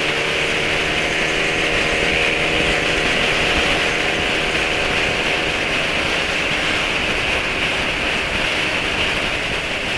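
Motor scooter engine running at speed under strong wind and road noise from riding. The engine's steady hum is clear for the first few seconds, then sinks into the wind.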